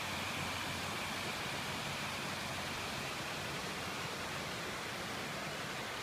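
Creek water running over a low rock-ledge waterfall and riffles: a steady, even rushing.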